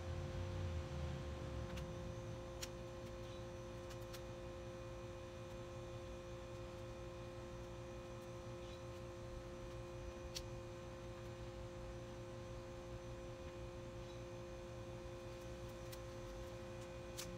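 A steady hum holding two pitches, over a low rumble, with a few faint clicks scattered through it from rubber bands being stretched onto a watermelon.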